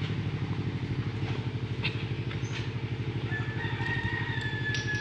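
An engine idles steadily with a rapid, even pulse. Near the end, a single drawn-out, high-pitched call falls slightly in pitch.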